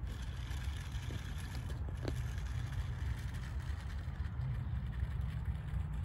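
Steady low rumble of wind buffeting the microphone.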